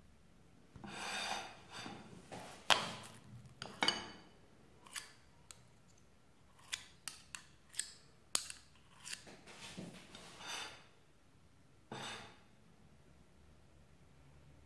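Two metal spoons scraping against each other as ricotta is shaped between them, with sharp clinks of spoon on a glass bowl and a ceramic plate. It comes as a string of short scrapes and clicks, the clicks bunched in the middle.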